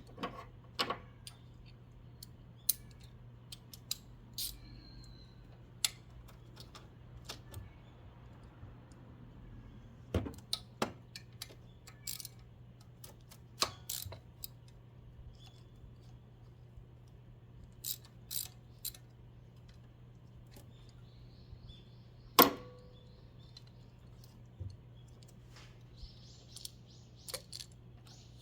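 Irregular metallic clicks and clinks of hand tools being handled during spark plug replacement, with one louder knock about two-thirds of the way through, over a steady low hum.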